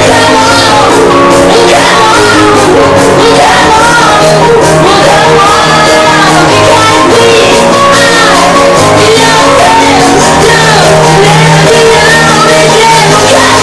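Loud music with a singing voice weaving over steady held notes, unbroken throughout.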